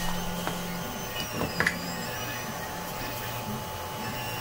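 Bar clamps being handled and tightened on a glued 3D-printed part: a few short clicks, the loudest about a second and a half in, over a steady low hum.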